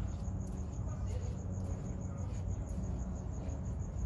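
A cricket chirping steadily, about five short high chirps a second, over a low rumble.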